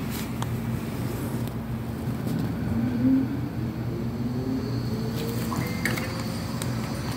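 A steady mechanical hum, likely an engine, with a tone that rises slowly in pitch over a few seconds. A few light clicks sound over it.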